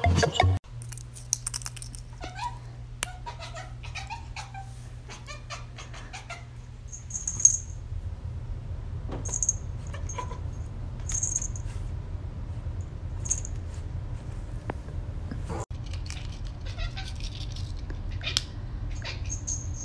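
A domestic cat meowing in a series of short calls over a low steady hum, with a sharp click about seven seconds in.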